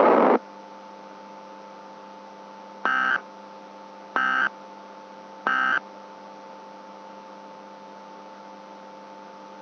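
Three short Emergency Alert System end-of-message data bursts (SAME 'NNNN' tones), each a fraction of a second and about a second apart, marking the end of the alert. Under them runs a steady electrical hum. A loud hiss cuts off just after the start.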